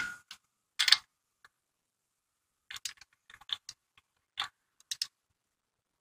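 Click-type torque wrench on a wheel's lug nuts: a couple of sharp metallic clicks in the first second, the wrench clicking off as the set torque is reached, then bursts of light ratchet ticks as the handle is swung back and worked on the nut.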